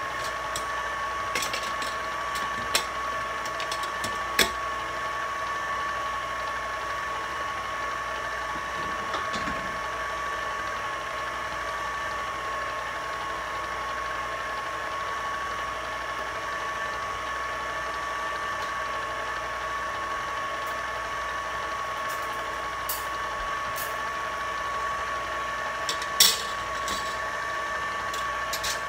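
Electric mixer running steadily, beating a batch of chocolate icing, with a constant motor whine. A few sharp clicks, the loudest near the end.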